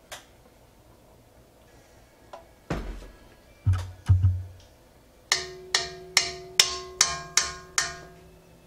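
A few dull thumps, then eight quick, evenly spaced taps of a measuring cup knocked against the rim of a stainless steel mixing bowl, each setting the bowl ringing with a clear tone that carries through the run of taps.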